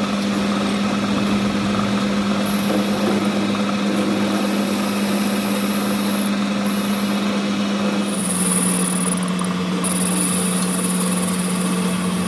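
A steady mechanical hum that drops slightly in pitch about eight seconds in, with a high hiss that comes and goes above it.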